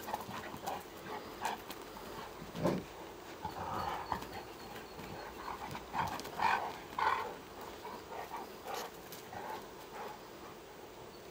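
Two Newfoundland dogs play-fighting, with scattered short grunting and growling noises and some scuffling. The noises come in small clusters, mostly in the middle of the stretch.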